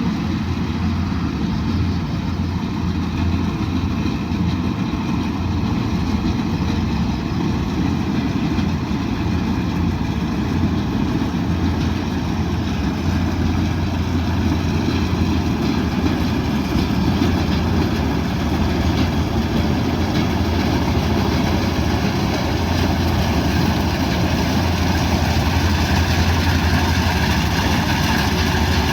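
Kubota DC108X combine harvester running steadily: a continuous low engine drone with a dense noisy layer above it, growing slightly louder toward the end.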